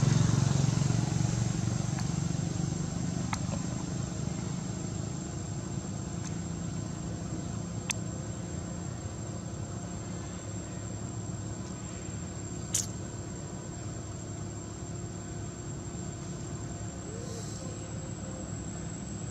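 A motor vehicle's engine running, loudest at the start and fading steadily, with two sharp clicks about eight and thirteen seconds in.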